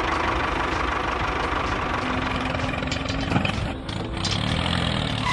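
An engine idling steadily, a dense low rumble with a short dip in loudness about four seconds in.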